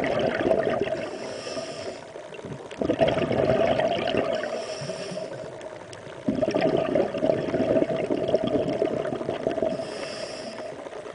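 Water sloshing and churning near the surface, heard through an underwater camera. It comes in surges that start suddenly and fade, about every three and a half seconds.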